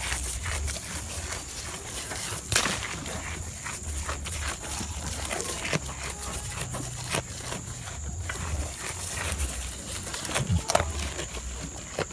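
Goats greedily biting and chewing awar-awar leaves close to the microphone: repeated crisp crunches, snaps and tearing of leaves and stems, with low bumps now and then.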